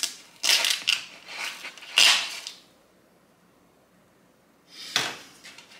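A plastic package of plant-based ground meat being handled and opened: a few rustling, crinkling bursts over the first two and a half seconds, then a single click near the end.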